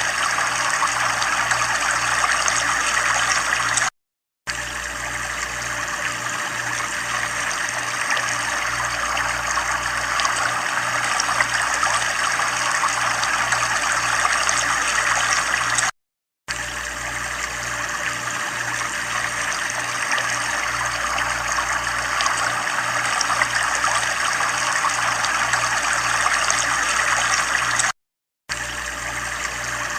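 Steady running water, a continuous trickling rush. It cuts out completely for about half a second three times, evenly spaced about twelve seconds apart, as a looped recording restarts.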